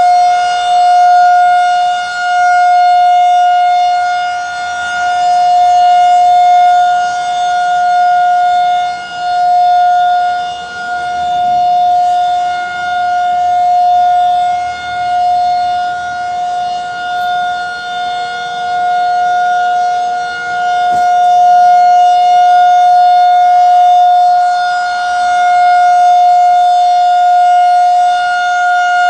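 Federal Signal 2001-SRN rotating outdoor warning siren sounding a steady alert tone for a severe thunderstorm warning. The pitch holds, while the loudness swells and fades every few seconds as the siren head turns.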